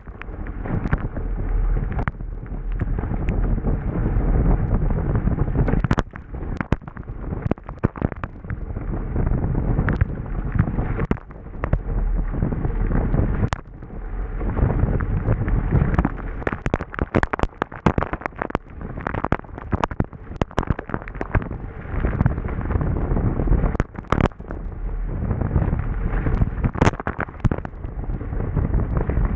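Wind buffeting the microphone and water rushing and splashing along a Hobie Bravo sailing fast in gusty wind, with many sharp pops and cracks as spray strikes the camera.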